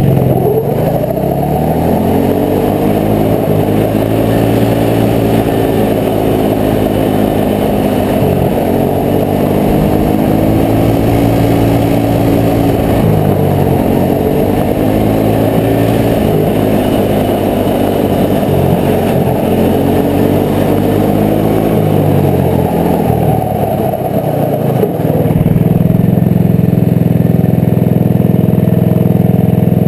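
Engine of a 120-class youth racing snowmobile under way. Its pitch climbs hard, drops off sharply three times as the throttle eases, and winds down a little over twenty seconds in. It then holds a steady, lower idle near the end once the sled has stopped.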